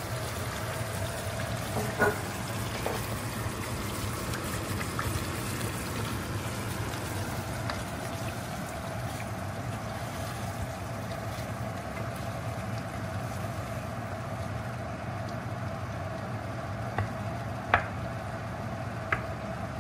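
Tomato sauce sizzling and bubbling in a hot frying pan around browned meatballs, over a steady hum. A few light knocks of a wooden spoon against the pan, one early and two near the end, the loudest of them near the end.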